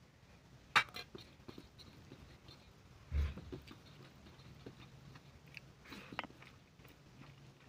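Eating sounds: a person chewing and working rice and fish curry by hand on a steel plate, with small scattered clicks and rustles. A sharp click comes about a second in and a dull thump about three seconds in.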